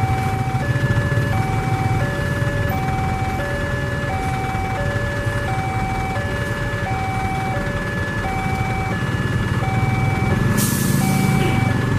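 Railway level-crossing warning alarm sounding a steady alternating two-tone signal, switching pitch about every 0.7 s while the barriers are down for an approaching train. Truck engines idle underneath, and a short hiss comes near the end.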